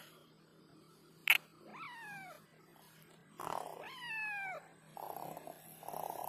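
Tabby street cat meowing twice, a short falling meow and then a longer one, with a sharp click just before the first. A rougher noisy sound follows near the end.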